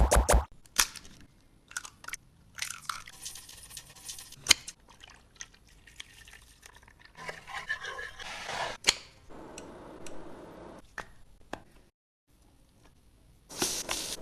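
Close-up cooking and handling sounds: scattered sharp clicks and taps mixed with stretches of rustling and scraping, then a brief silence shortly before the end.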